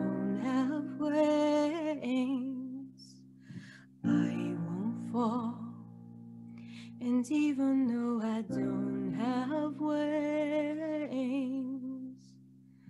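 A woman singing with vibrato to held piano chords. The voice drops out for a few seconds in the middle while the piano goes on, comes back, and the music fades out near the end as the song finishes.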